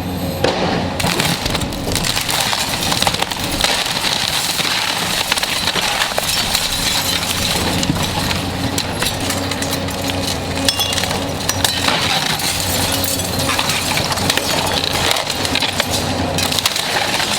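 Excavator tearing through a house's walls: its diesel engine running steadily under a constant clatter of splintering and breaking debris, glass among it.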